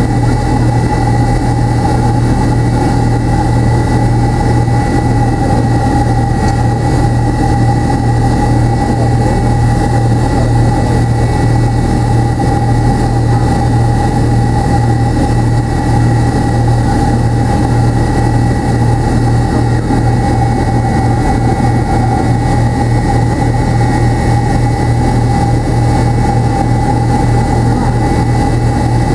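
McDonnell Douglas MD-83's rear-mounted Pratt & Whitney JT8D turbofans heard inside the cabin at low power as the airliner taxis: a steady deep drone with a constant mid whine and a thin high whistle over it.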